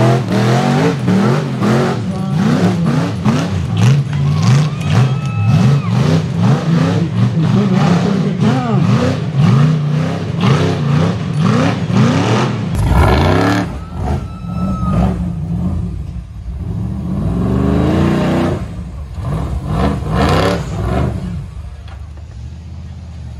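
A rock bouncer buggy's engine revving hard in rapid throttle bursts, pitch swinging up and down, as it climbs a boulder hill. About 13 seconds in the sound changes abruptly to a quieter engine revving in slower rises and falls.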